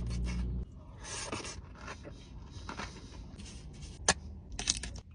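Close-miked crunching and chewing of knafeh, a crisp shredded-pastry dessert with chocolate and pistachio, in irregular crackly bursts with a sharp crack about four seconds in. A low hum stops about half a second in.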